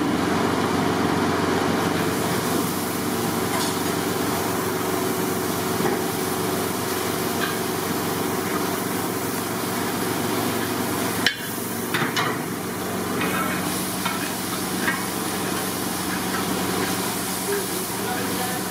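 Long-handled metal ladle stirring and scraping rice in a large metal pot as it fries, with repeated scrapes over a steady background hum. One sharp click comes about eleven seconds in.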